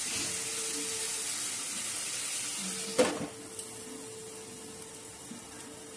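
Onion-tomato masala and potatoes sizzling as they fry in a non-stick kadai while being stirred, the masala being cooked down. About three seconds in, a glass lid knocks onto the pan, and the sizzle drops to a quieter hiss.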